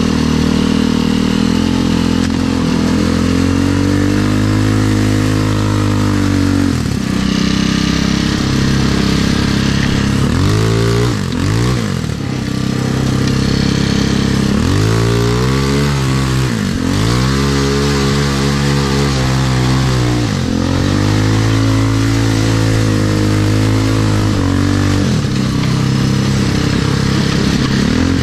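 Off-road buggy's engine under way, revving up and easing off over and over, its pitch rising and dropping back every few seconds as the throttle opens and closes, over a steady noisy rush.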